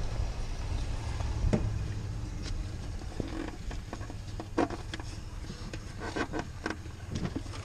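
Scattered small clicks, knocks and light scrapes of hands working an air line through a rubber firewall grommet in a car's engine bay, with a steady low hum underneath.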